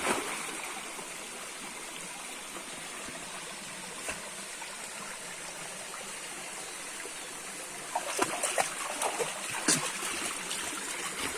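Water flowing steadily, like a stream, with irregular splashing in the last few seconds.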